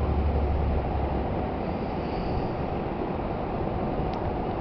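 Steady outdoor background noise: a rushing hiss, with a deep rumble in the first second or so that then drops away.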